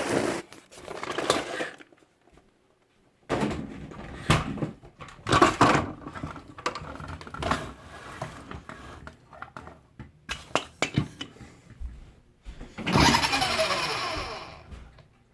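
A person imitating a radio-controlled car's motor with the mouth: buzzing, sputtering engine noises in long noisy stretches with small crackles. They break off for about a second near the start, and a louder burst comes near the end.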